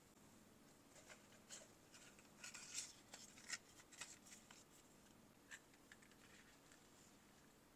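Faint rustles and light clicks of a small black notebook being handled and set down on a table, loudest a little under halfway through.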